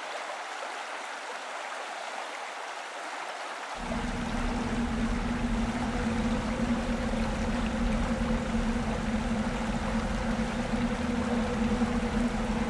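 Steady rushing of river water. About four seconds in, a steady low hum joins it and the sound grows somewhat louder.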